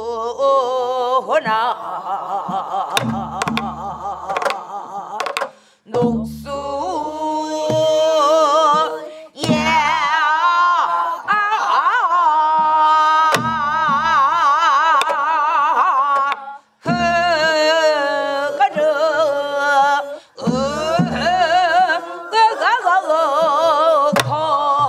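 Group of voices, led by a woman, singing a Namdo folk song (southwestern Korean minyo) with the heavy, shaken vibrato of the style. The singing is punctuated by slow, spaced strokes of a stick on a buk barrel drum, and breaks off briefly between phrases.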